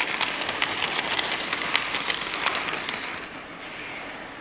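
Model train wagons rolling past close by on the layout's track, wheels clicking rapidly over the rail joints; the sound drops away about three seconds in as the train moves off.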